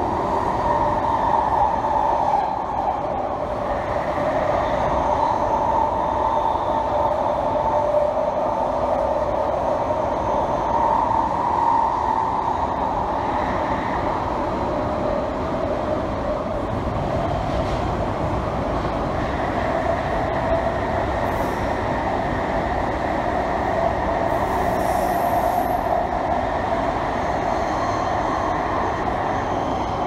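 London Underground Jubilee line 1996 Stock train running through a tunnel, heard inside the carriage: the steady noise of wheels on rail, with wavering high tones in it.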